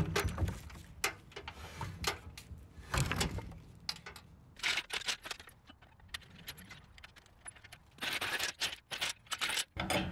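Irregular metallic clinks, rattles and scrapes from handling a steel engine hoist and its lifting gear, with a denser run of clatter near the end.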